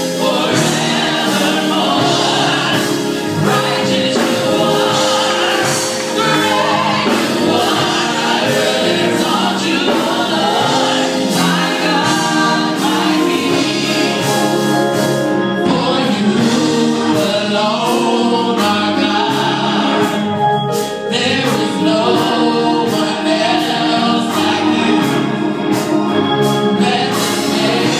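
Gospel vocal group singing together, backed by a live band of keyboard, bass guitar and drums.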